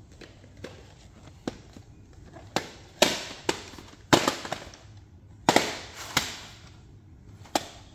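VHS cassettes and their hard plastic cases being handled, giving about ten sharp clicks and clacks at uneven intervals, some with a short rattle after them.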